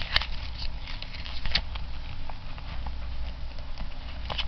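Paper booklets and cardboard being handled: light rustling and scattered short taps and clicks, the sharpest just after the start, over a steady low hum.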